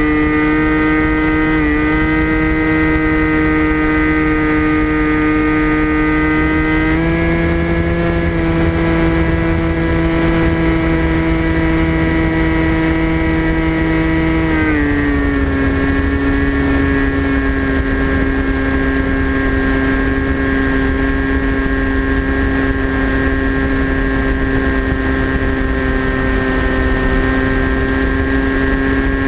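Electric motor and propeller of a TBS Caipirinha flying wing whining steadily in flight, recorded onboard with wind rumble beneath. The pitch steps up slightly about seven seconds in, then drops lower about halfway through as the throttle is eased, and holds there.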